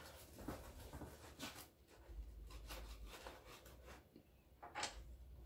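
Knife sawing through a crusty homemade Italian loaf on a wooden cutting board: faint, scratchy crackling strokes, with one sharper click near the end.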